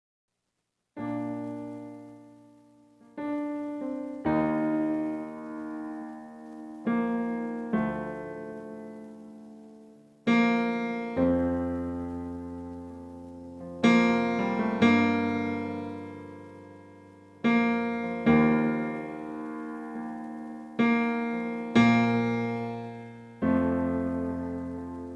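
Keyboard playing with a piano sound: slow sustained chords, struck every couple of seconds and left to fade, starting about a second in.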